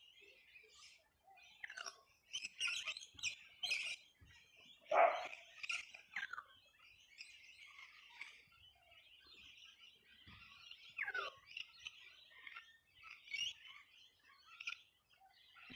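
Small flocks of birds chirping and calling as they settle to roost at dusk: a steady scatter of high chirps, with louder calls about two to six seconds in and again near eleven seconds, some of them sliding down in pitch.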